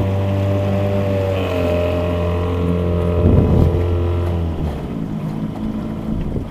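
1995 Johnson 4 hp two-stroke outboard motor running under way, its pitch stepping up slightly about a second and a half in. A brief loud rush of noise comes about three seconds in, and just after four and a half seconds the motor drops to a lower, quieter running.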